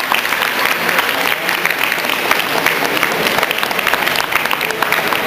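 Audience applauding: many hands clapping steadily, with some voices mixed in.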